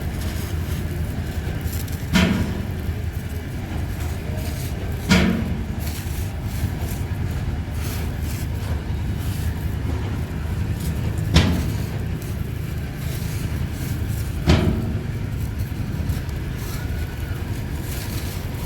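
A steady low rumble, with four sharp knocks a few seconds apart.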